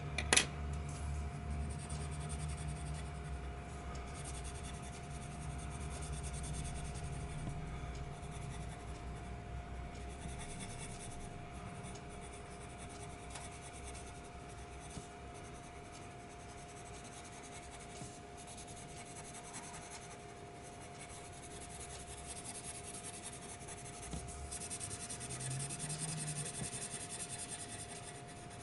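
Coloured pencil scratching and rubbing across paper in steady shading strokes, with one sharp click just after the start.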